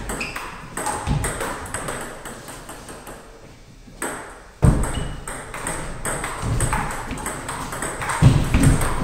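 Table tennis rally: the ball clicking back and forth off the paddles and the table in quick succession. A heavier, deeper thump lands about halfway through, and more come near the end.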